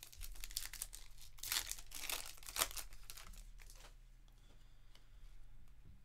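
A foil trading-card pack wrapper being torn open and crinkled in the hands. A dense run of crackles fills the first three seconds, then fainter rustling follows.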